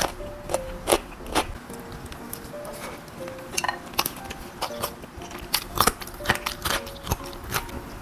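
Close-miked eating sounds: a person chewing, with repeated wet clicks and lip smacks, over soft background music.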